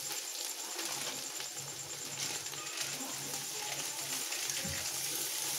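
A spoon stirring and scraping masala frying in an aluminium pot, with a faint sizzle.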